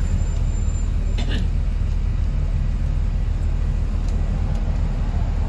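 Open-top tour bus running, heard from the upper deck: a steady low rumble, with a brief hiss about a second in.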